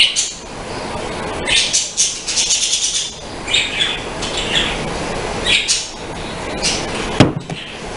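Bird chirping in quick bursts of high chirps through the background, with one sharp knock about seven seconds in.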